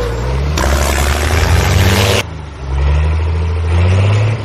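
Tractor engine running and revving, its pitch rising and falling, with an abrupt change in the sound about two seconds in.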